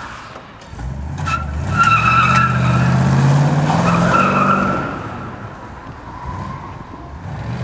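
1969 Ford Torino's 302 small-block V8 accelerating hard, its pitch rising, while the tyres squeal through a turn about a second in until about four and a half seconds in. The sound then fades as the car pulls away.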